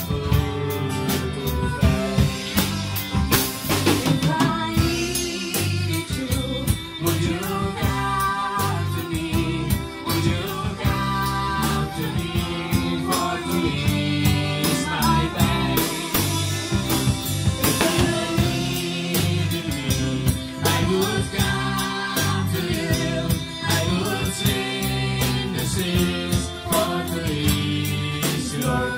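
Band music with a drum kit and singing, played steadily throughout.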